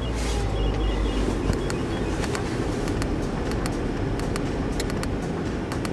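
Renault car engine idling just after a cold start in hard frost, heard from inside the cabin as a steady low hum. It is dotted with light clicks as the trip-computer button is pressed through its displays.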